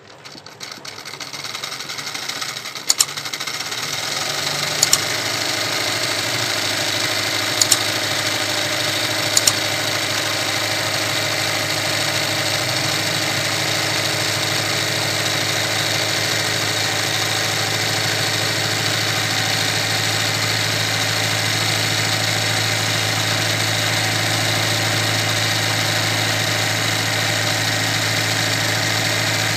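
Electric sewing machine running: its motor speeds up over the first few seconds, then holds a steady hum. Four sharp clicks in the first ten seconds.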